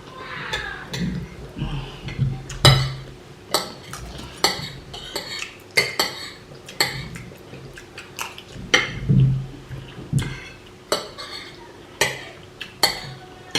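Cutlery clinking and scraping against plates as people eat, with repeated sharp, irregular clinks about one or two a second.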